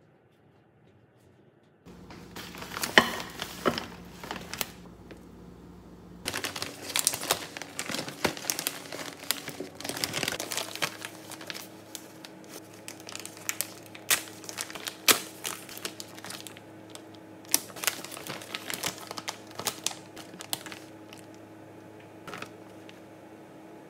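Plastic packaging of a frozen fish cake skewer soup pack crinkling and rustling as it is handled and opened, starting about two seconds in, with irregular sharp crackles throughout.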